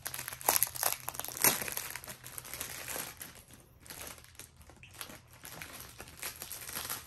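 Plastic bags of diamond painting drills crinkling as they are handled, with several sharper crackles in the first second and a half, then softer rustling.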